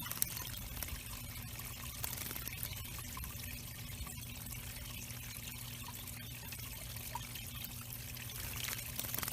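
Water steadily trickling and splashing into a small backyard bird pond, with a faint constant low hum underneath.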